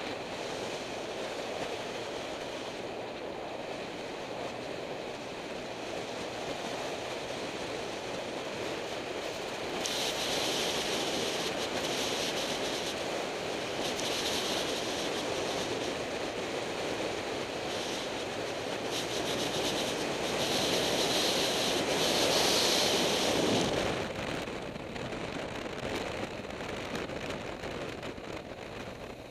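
Wind rushing over the microphone of a moving motorcycle, a steady rumbling roar. A harsher hiss comes and goes through the middle and drops away about four fifths of the way through.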